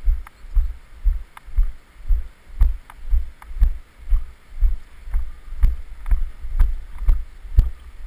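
Footsteps of a hiker walking on a snow-covered road: regular low thumps about two a second, each with a light click.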